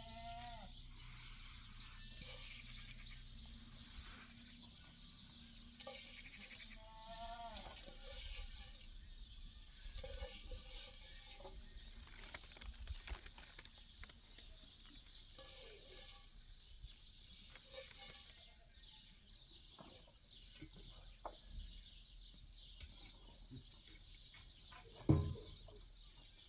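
Goats bleating now and then, a few short wavering calls, over steady high chirping. A single sharp thump near the end is the loudest sound.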